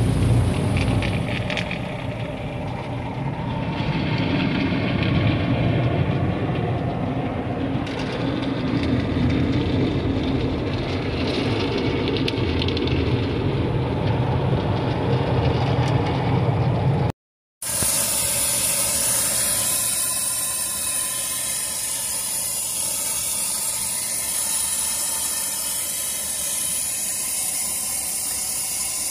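Automatic car wash running: a steady rush of water and machinery with a strong low rumble, then, after an abrupt break partway through, a steadier high hiss of spray.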